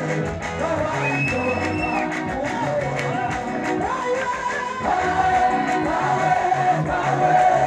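Gospel worship song sung by a large group of women over band accompaniment with a bass line. Steady hand clapping runs through it.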